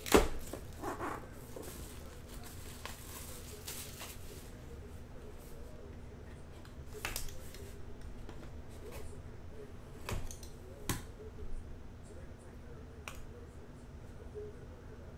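A shrink-wrapped cardboard trading-card box being opened by hand. The plastic wrap crinkles as it is stripped through the first few seconds, then a knife slits the box's tape seal. Sharp clicks and taps of the box and hands are scattered throughout.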